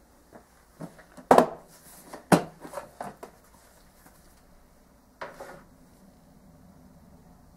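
Plastic storage box's clip-on lid being unclipped and lifted off: a run of sharp plastic clicks and knocks, two of them loud, then a short scrape about five seconds in.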